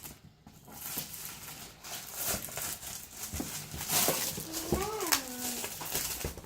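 Light clicks and rustling, typical of cardboard jigsaw puzzle pieces being handled and pressed into place. About five seconds in comes a short, high, voice-like sound that rises and then falls.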